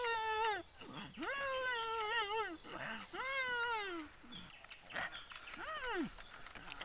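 A cat meowing repeatedly: about five drawn-out meows, each under a second, each rising and then falling in pitch.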